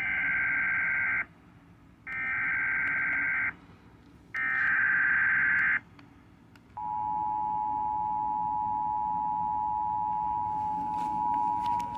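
Emergency Alert System activation: three bursts of warbling digital SAME header data, each about a second and a half long, then about seven seconds in the steady two-tone EAS attention signal starts and holds. The alert heralds a flash flood warning.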